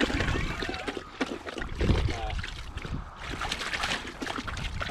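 Irregular crackling and rustling of movement through dry field cover, with brief faint voices.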